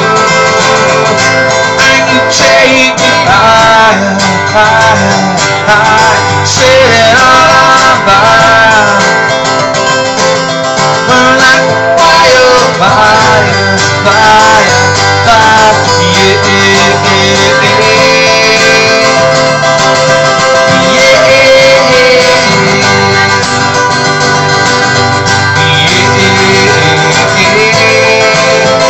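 Live acoustic music: two acoustic guitars strummed together, with a voice singing a wavering melody over them through about the first twelve seconds.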